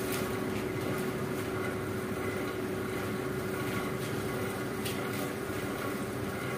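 Steady hum of a small motor-driven machine, holding one constant mid-pitched tone, with a faint click about five seconds in.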